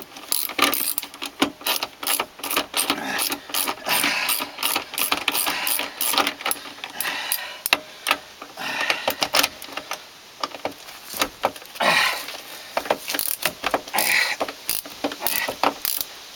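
Hand tool turning a fastener on car parts: a long run of irregular sharp metallic clicks and clinks, several a second, with a few louder clatters.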